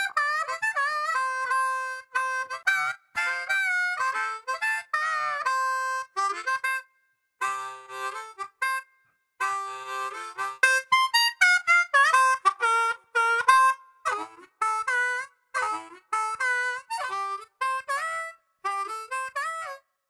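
Harmonica music: a tune of quick short notes and a few longer held notes, with a couple of brief pauses.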